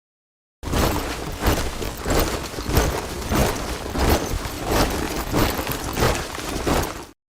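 Soldiers' boots marching in step: a rhythmic tramp of massed footfalls, about three steps every two seconds. It starts about half a second in and cuts off abruptly near the end.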